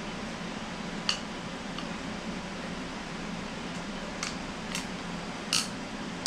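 A handful of sharp clicks and ticks from a new red conventional fishing reel being handled and worked in the hands, spread irregularly, the loudest about five and a half seconds in, over a steady low hum.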